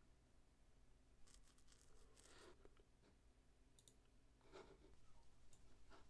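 Near silence: room tone with a low hum, broken by a few faint clicks and rustles.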